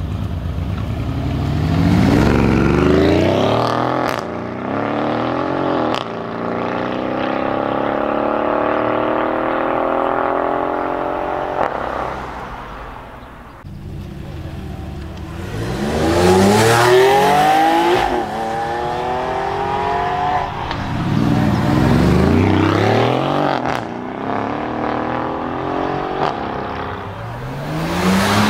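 Mercedes CLS 63 AMG S twin-turbo V8 accelerating hard, the engine note rising through the gears with a drop at each gear change and one long steady climb in the middle. Further hard accelerations follow, each a fresh rising run of engine pitch broken by gear changes.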